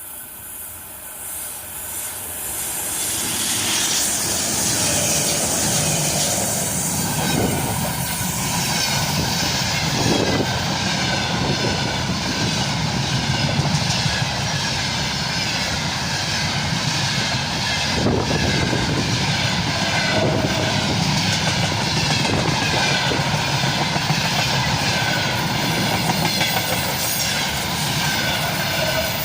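A freight train hauled by a 3ES5K electric locomotive passes at about 80 km/h. It grows louder over the first three seconds as it approaches, then the wagons run past steadily, with occasional knocks of the wheels over the rails.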